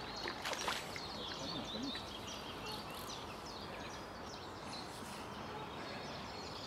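Small birds chirping and singing steadily over a light outdoor hiss. About half a second in there is a brief splash as a hooked carp thrashes at the water's surface.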